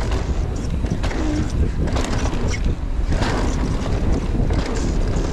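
Wind buffeting the microphone of a bike-mounted or helmet camera over the rumble and clatter of mountain bike tyres and frame on a rough dirt downhill trail at speed.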